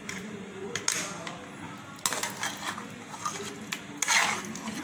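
Metal ladle scraping and clinking against metal pots while wet chicken masala is scooped out onto the rice: a few sharp clicks near the start, then scraping about two seconds in and again about four seconds in.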